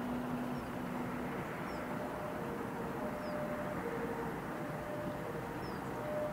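Distant church bells ringing: sustained bell tones, mostly alternating between two pitches about every half second, over a steady outdoor hiss, with a few faint high chirps.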